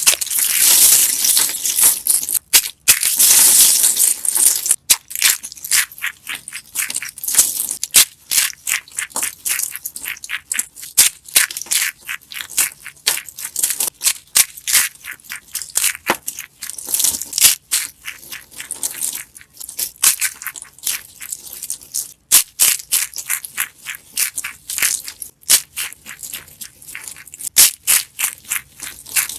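Dry, brittle soap-ASMR material being crushed: a dense run of crisp crunches and crackles. The crunching is thickest in the first five seconds, then breaks into separate sharp crunches.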